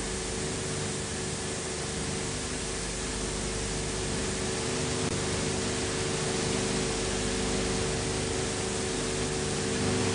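Steady hiss and static with a constant low hum, the background noise of an old film's soundtrack transfer; it cuts off abruptly at the very end.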